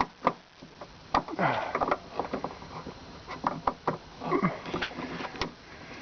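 Small plastic clicks and taps as a license plate bulb holder is pushed and twisted against its socket in the light housing without seating, mixed with a few short sniffs or breaths.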